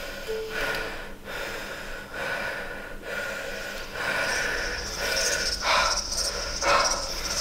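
A person's heavy breathing, breaths coming about once a second over a steady hiss.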